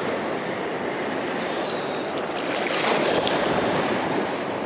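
Gulf of Mexico surf waves breaking and washing around a wader, a steady rushing wash that swells about three seconds in.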